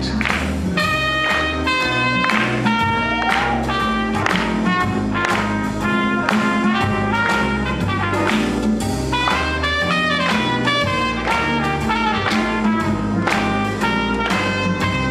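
Swing jazz with brass playing over a steady beat and a walking bass line that steps to a new note on each beat.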